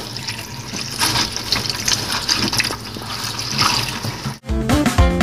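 Kitchen tap water running into a plastic bowl of walnut kernels as they are washed. About four seconds in it cuts off suddenly and music starts.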